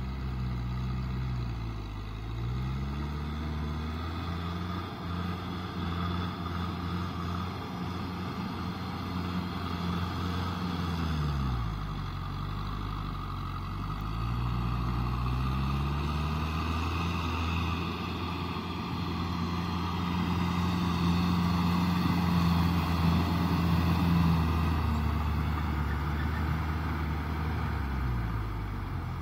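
Kubota M6040SU tractor's diesel engine running under load as it drives a rotavator through wet mud. The engine note drops twice, about eleven seconds in and again near the end, then rises back.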